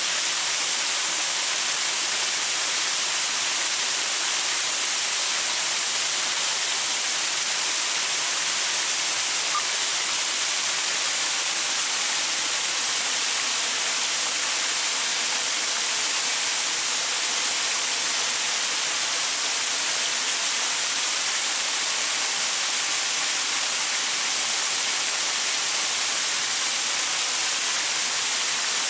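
Small waterfall splashing over rocks: a steady, even rushing hiss weighted toward the high end, unchanging throughout.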